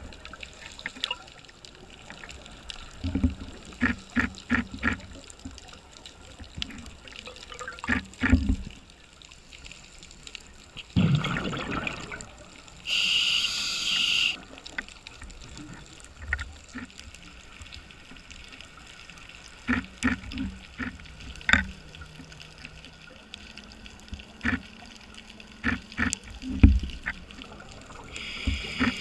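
A scuba diver's breathing heard underwater: exhaled bubbles rush out about eleven seconds in, then the regulator hisses through an inhale, and another hiss comes near the end. Scattered pops and clicks sound throughout.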